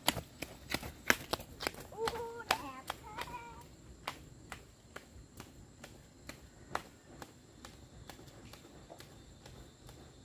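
A run of sharp taps, two or three a second, loudest over the first few seconds and fainter after, with a brief voice about two seconds in.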